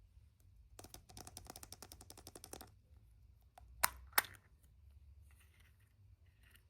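Surprise-egg packaging being handled. A fast run of small crackling clicks lasts about two seconds, then two sharp snaps follow close together, as a plastic part is worked and snapped.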